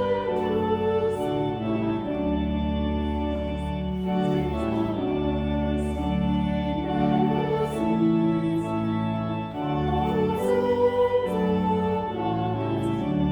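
Organ music: slow sustained chords over a low pedal bass, the harmony moving every second or two.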